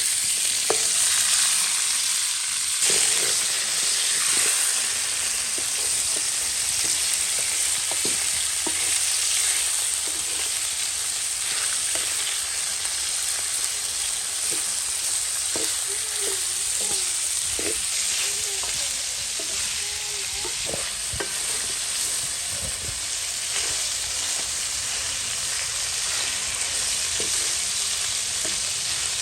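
Chicken pieces frying in hot oil: a steady sizzle with scattered small pops and crackles.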